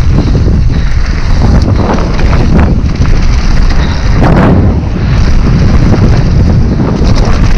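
Heavy wind buffeting on the microphone of a camera riding along on a mountain bike descending a wet trail. Under it are the rumble of knobbly tyres and irregular knocks and rattles as the bike runs over bumps.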